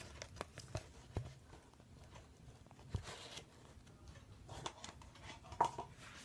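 Faint scattered taps and knocks of a phone being handled and propped up against things on a table, with a brief rustle about three seconds in.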